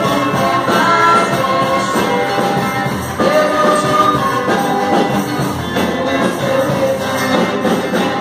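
Live church worship music: a group of voices singing over instrumental accompaniment, played through PA loudspeakers in a hall.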